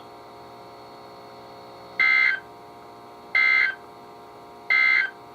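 Three short bursts of EAS/SAME digital data tones from a NOAA Weather Radio broadcast, each a warbling two-tone squawk about a third of a second long and spaced about 1.3 s apart, the end-of-message code that closes the flood warning. Between the bursts the radio carries a steady hum.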